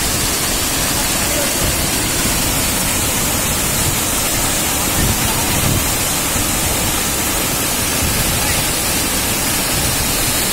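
Muddy runoff water pouring over an eroded earth bank into a gully: a steady, loud rushing splash of falling water.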